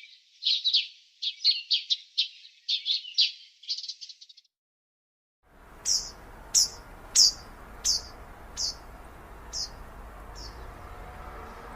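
Small birds chirping in quick runs of high notes, then a short break into dead silence. After it comes a single series of about eight sharp, falling chirps, spaced evenly and fading, over a steady background hiss.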